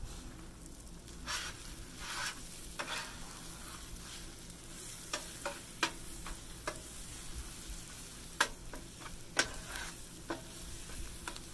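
Eggs and vegetables sizzling on a Blackstone steel flat-top griddle while a metal bench scraper chops and scrapes across the cooking surface, giving irregular clinks and scrapes over the steady frying.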